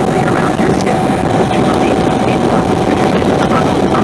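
Bombardier Q400's Pratt & Whitney PW150A turboprop engines and propellers, heard from inside the passenger cabin as a loud, steady drone with one steady tone above a dense rumble, during the take-off roll.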